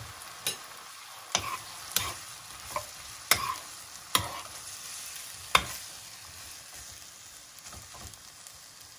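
Minced pork, red pepper and long beans sizzling in a non-stick frying pan with a little added water, stirred with a metal spoon. Several sharp scrapes and knocks of the spoon against the pan come in the first six seconds, then only the sizzle.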